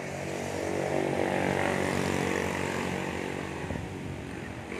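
Engine hum of a passing aircraft, growing louder to a peak about two seconds in and then fading.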